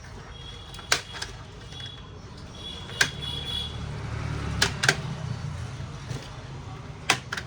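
Sharp plastic clicks, about seven of them in irregular pairs and singles, as the Dell Inspiron 3542 laptop's plastic case is pried open and its clips snap loose.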